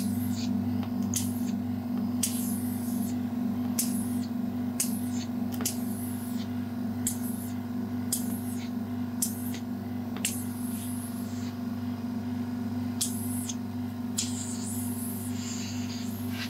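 Facial massage treatment sounds: short, high, hissing swishes, irregular and roughly one a second, over a steady low hum.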